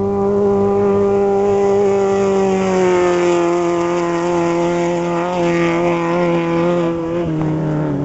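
Off-road race vehicle's engine running at a steady high pitch as it speeds across desert gravel and passes close by, with tyre and gravel noise strongest midway. The engine note drops slightly about three seconds in and again near the end.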